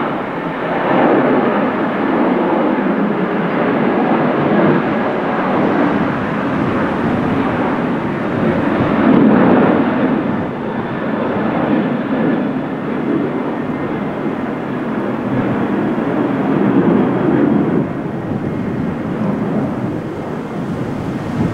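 Boeing 737-800's CFM56 jet engines at takeoff thrust: a loud, continuous rumble that swells and fades a little, loudest about a third of the way in.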